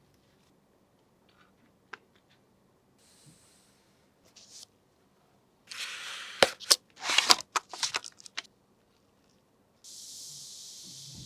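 Handling noises during PC assembly: scattered clicks, then a cluster of sharp clicks and rustling, like packaging or plastic film being torn, followed near the end by a steady high hiss lasting about two seconds.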